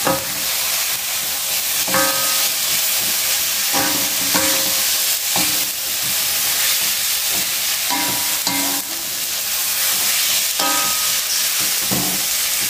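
Cabbage, spring onion and meatballs sizzling in a hot wok over a gas flame while a spatula stirs them, scraping and clinking against the wok with short ringing clanks every second or two.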